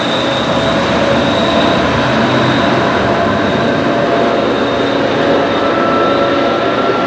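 MBTA HSP46 diesel locomotive no. 2036 running under power as its commuter train pulls away, a loud steady drone with a high whine held throughout. A thin higher tone joins a little after five seconds in.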